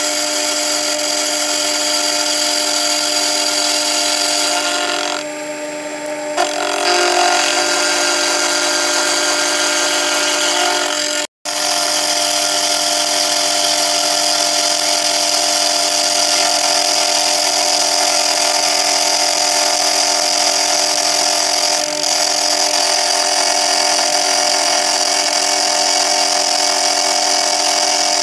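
Sherline milling machine's spindle running with an end mill skimming the face of a 4140 pre-hard steel block: a steady motor whine over the hiss of cutting. It eases off briefly about five seconds in and cuts out for an instant near eleven seconds.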